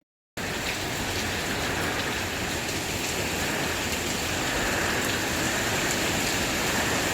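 Hurricane rain falling steadily, an even hiss that comes in after a brief silence at the very start.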